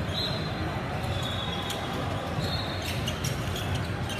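Basketball game play: a basketball bouncing on the court, with several short, high sneaker squeaks and a few sharp clicks.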